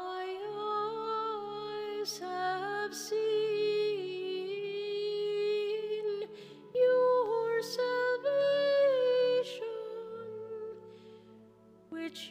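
A solo voice singing a hymn in long, held notes over sustained accompanying chords, fading near the end and starting again just before it stops.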